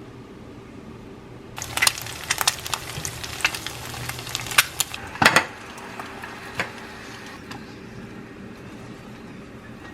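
Kitchen cooking sounds: about a second and a half in, a crackling hiss full of sharp clicks starts abruptly and cuts off about three and a half seconds later, followed by a couple of sharp knocks like a utensil against cookware, then a quiet background with a few soft clicks.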